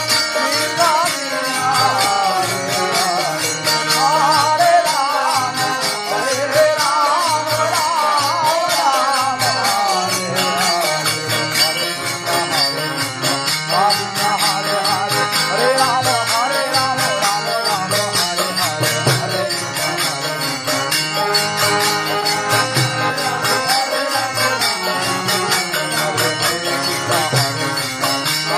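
Harinam sankirtan, Indian devotional music: a melody line sliding and wavering over a steady low drum beat, with continuous bright jingling on top.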